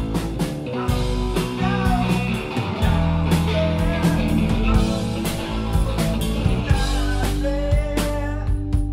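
A rock band playing live: electric guitar, bass guitar and drum kit, with regular drum and cymbal hits under held, wavering guitar notes.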